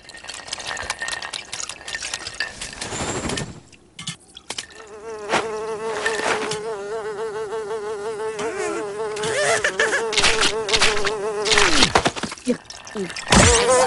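Cartoon sound effects: a quick run of clicks and clatters, then from about five seconds in a wavering, insect-like buzz that holds for about seven seconds, followed by a few sharp hits near the end.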